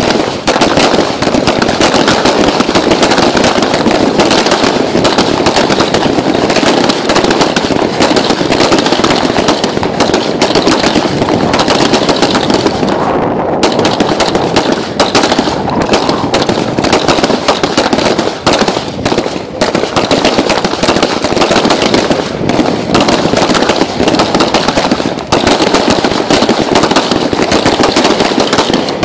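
Many service pistols firing at once along a firing line: rapid, overlapping shots with barely a gap between them, loud throughout, with a few brief lulls.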